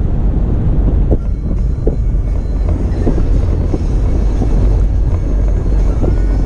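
Toyota FJ Cruiser driving a snowy off-road trail: a steady low rumble with scattered short knocks and bumps.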